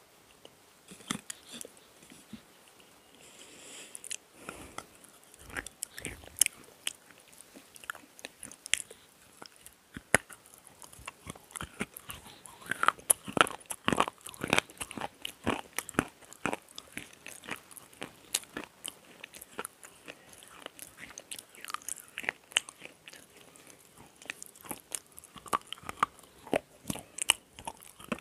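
Close-miked biting and chewing of black slate pencils: irregular, sharp crunches and clicks as the brittle slate breaks between the teeth, coming thickest around the middle and again near the end.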